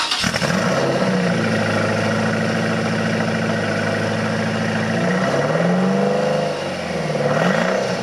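1999 Lotus Esprit's twin-turbo V8 running with a dead miss: two cylinders are getting no spark, and it doesn't sound great. It idles steadily, then is revved up and back down twice in the second half.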